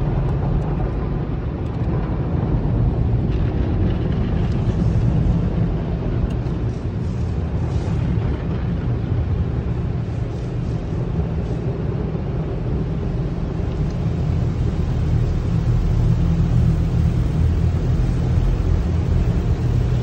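Automatic tunnel car wash heard from inside the car's cabin: a steady low rumble of water spray and soft cloth brushes washing over the car as it is coated in triple foam.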